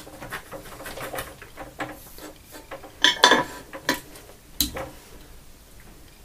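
Small metallic clatter and clicks from the soldering iron being set back into its metal stand and the helping hands' alligator clips being handled. The loudest is a cluster of clatter about three seconds in, followed by a single sharp click a second and a half later.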